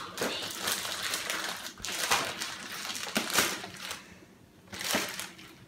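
Clear plastic packaging crinkling and crackling as it is handled and pulled off a boxed action figure. There are many sharp crackles, then a pause of about a second and one more short crinkle near the end.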